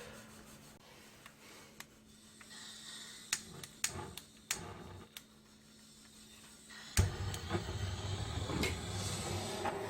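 Butane gas torch: a few light clicks and knocks as it is handled, then a sharp click about seven seconds in as it is lit, followed by the steady noise of the torch flame burning.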